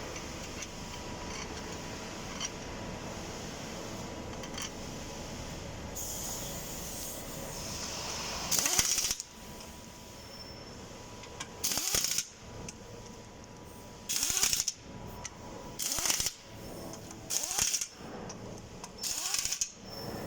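A steady mechanical hum, then six short, loud bursts of tool noise about every one and a half to two seconds, from tool work on the geared elevator winch during its low-speed shaft bearing replacement.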